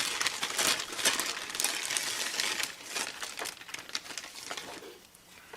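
Packaging being handled and crinkled, a dense irregular rustling and crackling that thins out and fades near the end.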